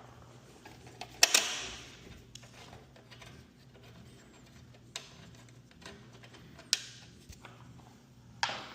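Sharp metal clanks and clicks of garage door hardware and hand tools being handled, the loudest about a second in with a short ring, then a few lighter clicks.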